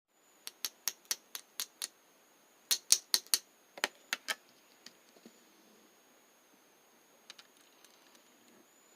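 Slime being pressed and worked by hand, giving a series of sharp clicks and pops. The loudest is a quick cluster around three seconds in, and only a few faint clicks follow after about four seconds.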